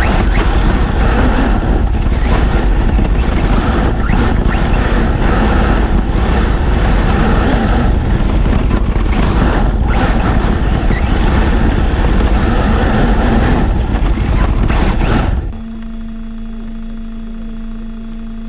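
Kyosho Inferno MP9e electric 1/8-scale RC buggy driving fast over dirt and leaves, heard through a camera stuck to its chassis: a loud, dense rumble of tyres, suspension and chassis jolts with motor noise. About fifteen seconds in it stops abruptly, leaving a steady low hum.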